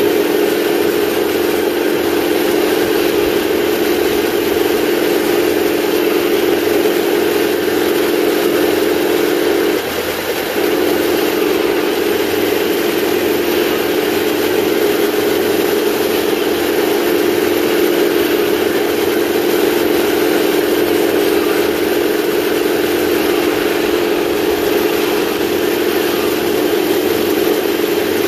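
Simulated tank engine sound from 1/16 scale RC model tanks' electronic sound units, a steady engine drone played through small speakers as the tanks drive in column. It dips briefly about ten seconds in.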